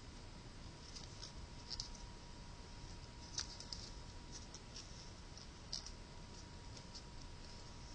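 Origami paper crinkling and crackling between the fingers as small pleats are creased and pushed down one onto another, a scatter of faint, sharp crackles at uneven intervals.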